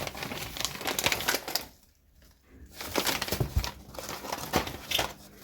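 Crinkling and rustling broken by small clicks and knocks, stopping for about a second near the two-second mark.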